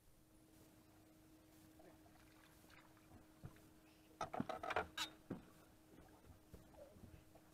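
A bass boat's electric trolling motor humming steadily, switching on just after the start. A short cluster of knocks and rattles on the boat's deck comes about four to five seconds in.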